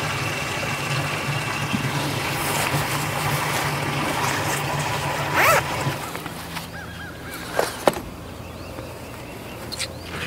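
Steady drone of a boat engine that drops away about six seconds in. A brief wavering squeal comes just before, and a sharp knock about two seconds after.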